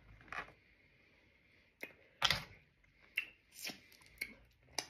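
Close-up eating of steamed oysters: about seven short, sharp mouth smacks and clicks, scattered at irregular intervals.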